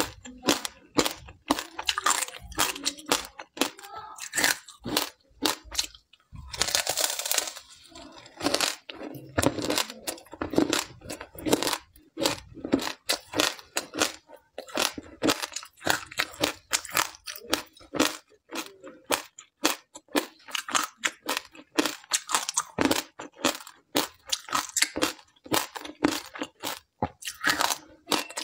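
Hard ice coated in seeds being bitten and chewed: quick, sharp crunches one after another, with a longer continuous crunch about seven seconds in.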